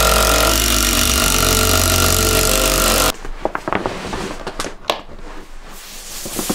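Cordless impact driver running as it drives a screw into a wooden post, loud and steady, stopping abruptly about three seconds in. After that comes the crinkling and rustling of a large vinyl banner being handled, with a few light clicks and taps.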